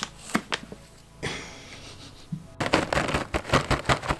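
A plastic cat-treat pouch rustling as a cat noses into it, then a dense run of fast crunches from the cat chewing dry treats, for the last second and a half.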